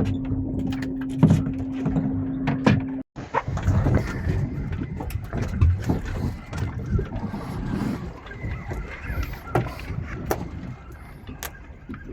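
Fishing boat under way: a steady rumble of engine, wind and water with scattered knocks and clicks on board. A steady hum runs through the first three seconds, then the sound drops out for an instant.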